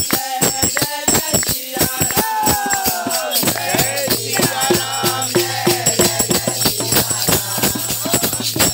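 A dholak drum played by hand with jingling metal percussion in a fast, steady beat, under a group of voices singing a devotional chant.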